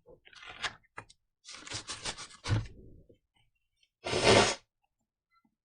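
Rubbing and scraping handling noises: a few short scrapes and a low thump, then a louder half-second rustle about four seconds in.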